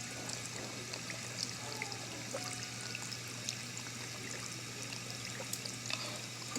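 Water running in a thin, trickling stream over a steady low hum, with small scattered clicks.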